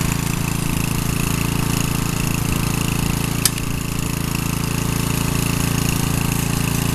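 Snapper rear-engine riding mower's engine running steadily, with one sharp click about three and a half seconds in.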